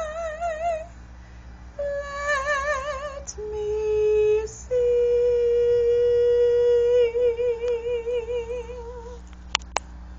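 A classically trained female voice sings the closing phrase with wide vibrato, ending on a long held note that stops about 9 seconds in. Two sharp clicks follow near the end.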